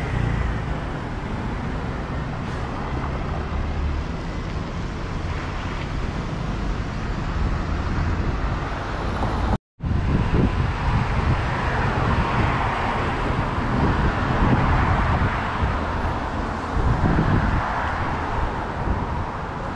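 Busy city road traffic, cars and buses passing close by, with the sound cutting out for a moment a little before halfway through.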